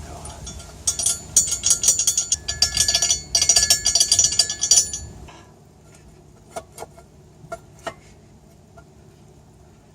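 Metal rattling and clinking as a hitch bolt is worked through a car's frame rail on a fish wire: about four seconds of rapid rattling, then a few separate clicks.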